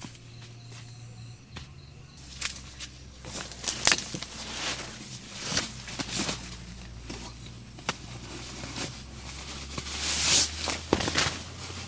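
Irregular close-up rustling and clicks, as of things being handled, with a longer, louder rustle about ten seconds in, over a faint low steady hum.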